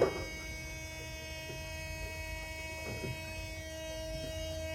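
Steady electrical hum: one constant whine with a row of even overtones, sitting over a low rumble and not changing in pitch or level.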